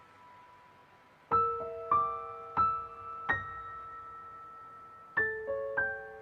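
Background music: slow, soft solo piano, single notes and small chords struck about every half second to a second, each left to ring and fade, after a pause of about a second at the start.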